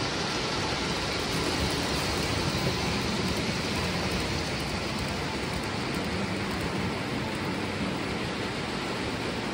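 Lionel O-gauge model trains running on the layout's three-rail track: a steady whirring rumble of wheels and motors.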